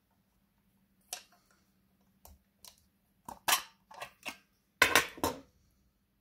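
Metal clicks and clacks from an Ihagee Dresden Exakta camera body as its back cover is unlatched and taken off. A few light clicks come first, then a louder cluster of clacks about five seconds in.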